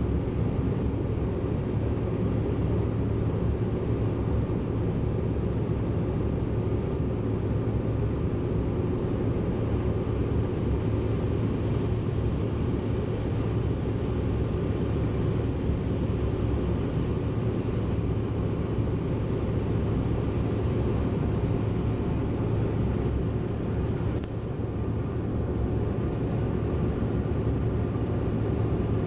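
Steady cabin noise inside a Bombardier CRJ900 in flight: the drone of its rear-mounted turbofan engines and the rush of air over the fuselage, with a steady low hum and a faint steady tone above it.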